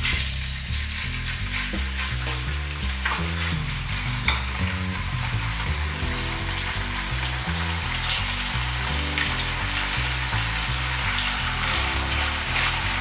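Chicken breast fillets sizzling steadily in hot olive oil in a frying pan as they are laid in, with a few sharp clicks of metal tongs against the pan.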